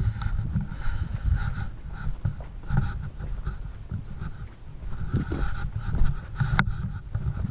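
Wind buffeting the camera microphone with footsteps on dry dirt and brush while walking. There is a single sharp click about six and a half seconds in.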